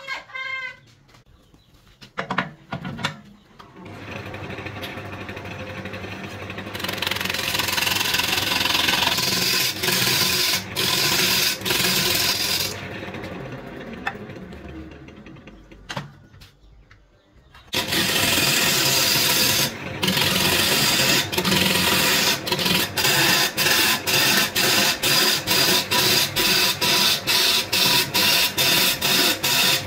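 Burt wood lathe turning a bark-covered log while a gouge roughs it down: a motor hum builds a few seconds in, then comes loud, rough scraping and shaving of the tool cutting the wood. The cutting eases off for a few seconds in the middle, then resumes with a rapid, regular pulsing.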